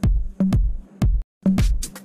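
Electronic dance music with a steady kick-drum beat about twice a second under a held low note. There is a brief gap a little past a second in, then hi-hats join the beat.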